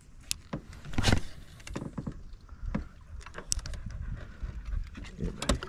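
Scattered knocks and clicks from a small fishing boat and a spinning rod and reel being handled, over a steady low rumble. The loudest knock comes about a second in.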